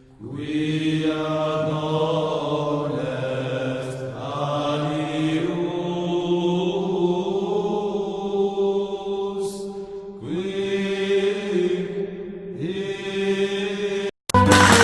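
Chanted vocal drone: long held notes in phrases of a few seconds each, with brief breaks between phrases. It cuts off just before the end, and louder, different music begins.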